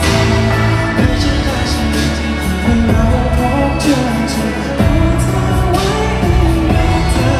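Thai pop song performed live: a male singer's voice over band accompaniment with sustained bass, and a few sharp hits near 1 s and about 5 s in.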